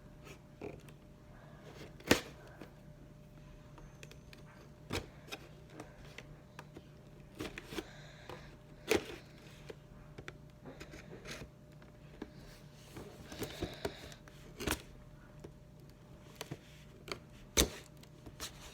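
Hands working at an action figure's box packaging: scattered clicks, taps and rustles of plastic and cardboard, with a few sharper knocks, the loudest about two seconds in, near nine seconds and near the end.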